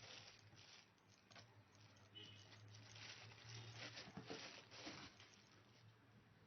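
Near silence: faint scattered rustles and light clicks over a low steady hum.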